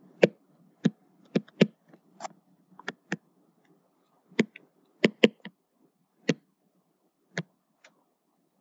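Pen stylus tapping and clicking on a tablet's writing surface during handwriting: about a dozen short taps at irregular spacing.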